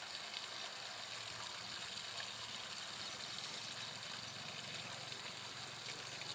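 Steady outdoor background noise: an even hiss with a faint low hum underneath that comes up about a second in.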